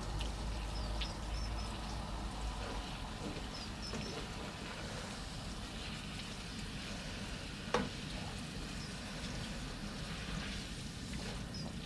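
Tagliatelle with courgette and bacon frying in a large pan on a gas hob and being turned over with a wooden spoon, giving a steady low sizzle. There is one sharp knock of the spoon against the pan about three-quarters of the way through.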